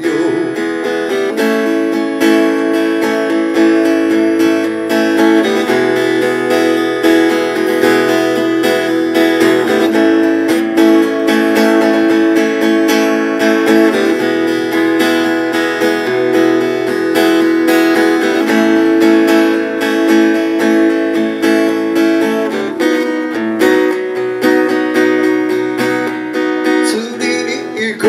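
Acoustic guitar strummed in steady chords, an instrumental passage of the song with no singing.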